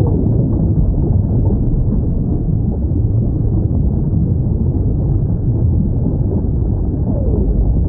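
Whale calls over a steady low rumble: a faint falling call near the start and another near the end.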